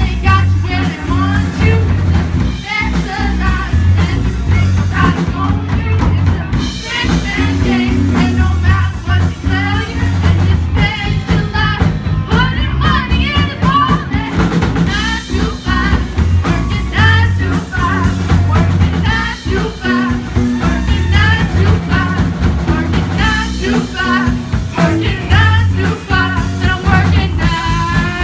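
Live amateur rock band playing a song with a lead vocal over drum kit, bass and guitar.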